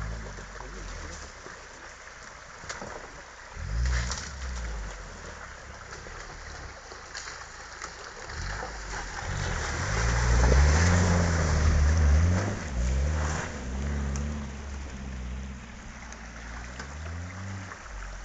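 Suzuki SUV engine revving up and down as it drives through a shallow rocky stream. It is loudest about ten to twelve seconds in as it climbs close past, with water and gravel under the tyres and the stream running throughout.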